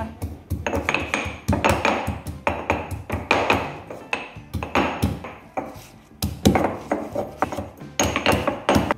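Stone pestle pounding green chillies, ginger and garlic in a heavy stone mortar: repeated hard thuds and knocks of stone on stone, about two or three strokes a second, as the ingredients are crushed into a paste.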